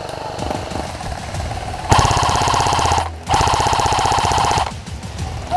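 Airsoft electric rifle firing full-auto: two long bursts of rapid, rattling shots with a short pause between them, about two seconds in and again near the end. Quieter rapid firing comes before them.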